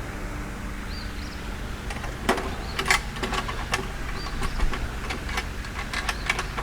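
Scattered light clicks and knocks of hardware and wooden panels being handled while a wooden chicken coop kit is bolted together, most of them in the middle and later part.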